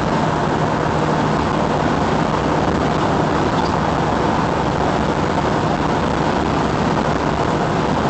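Steady road and engine noise inside a car's cabin at highway speed, with a low hum running through it.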